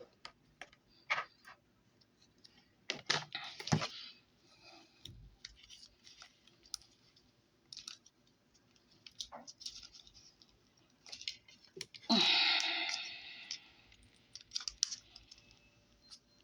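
Scattered clicks and taps of plastic Play-Doh molds being handled while dough is pressed into them, with a denser rustling burst about twelve seconds in.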